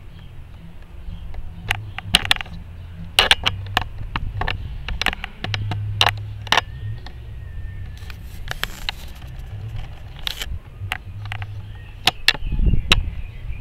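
Camera handling noise: irregular sharp clicks and knocks over a low rumble.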